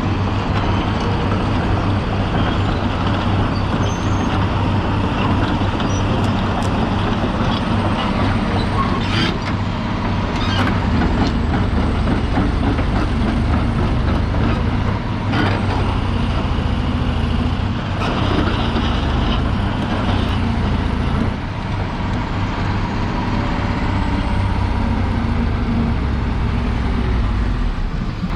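Komatsu PC400LC-7 hydraulic excavator's diesel engine running steadily, with a few sharp clanks and knocks from the machine as it works.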